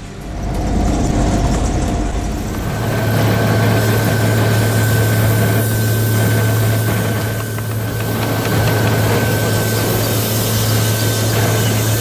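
Log-handling crane's machinery running steadily, with a strong low hum and a thin high whine over it that both set in about three seconds in, heard from on the crane.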